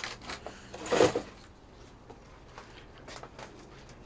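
Hands handling potted mustard greens: a brief, loud rustling crunch about a second in, with a few light knocks and clicks around it.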